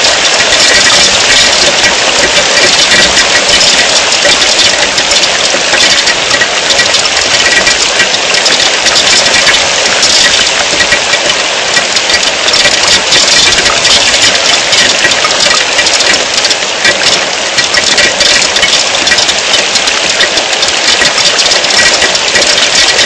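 Heavy rain falling: a loud, steady hiss of downpour.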